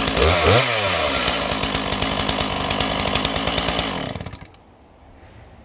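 Stihl MS 461 two-stroke chainsaw at full throttle ripping cedar lengthwise: the engine pitch climbs about half a second in, then holds steady under load, and the saw falls off to a much quieter level about four seconds in.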